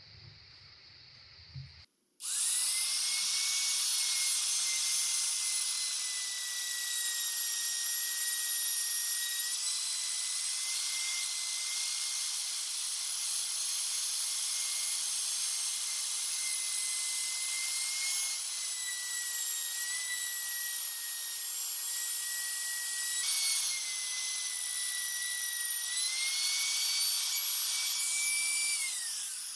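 Electric woodworking power tool switched on about two seconds in and running at high speed with a steady whine and hiss, working wood. Its pitch dips slightly a few times, then falls away quickly at the end as it is switched off and spins down.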